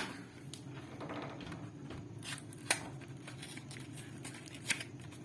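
Box packaging being opened and handled to take out a cable: light rustling and scattered small clicks, with two sharper clicks, one near the middle and one near the end.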